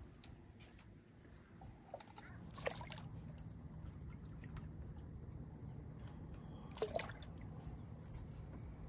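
Water sloshing as a snook is held in the water by hand and released over the side of a boat, with two short splashes, about three seconds in and about seven seconds in.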